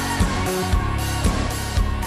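Background pop music with a regular drum beat.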